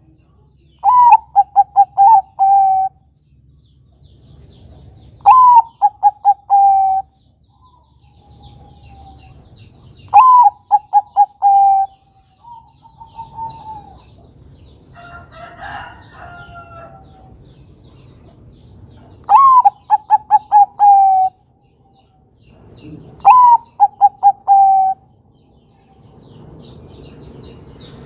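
Zebra dove (perkutut) singing its cooing song: a phrase about every four to five seconds, each a high opening note followed by a quick run of five or six coos. A shorter, different call comes in the middle.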